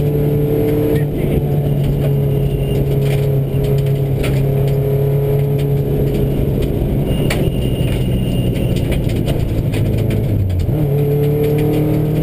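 Subaru rally car's flat-four engine pulling at high, steady revs, heard from inside the cabin, with scattered clicks and clatter of gravel against the car. About ten seconds in the revs drop briefly, then climb again.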